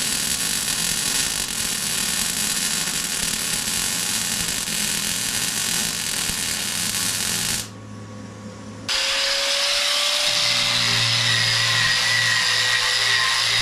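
Handheld power tool running on steel, cutting out abruptly about eight seconds in, then running again about a second later with a steady high whine.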